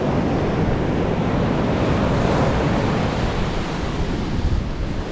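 Surf breaking and washing up a sandy beach, a steady rushing wash, with wind buffeting the microphone.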